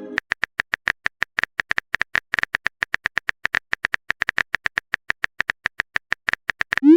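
Rapid, irregular clicks of a phone-keyboard typing sound effect, roughly eight a second, ending near the end with a quick rising swoop like a message-sent sound.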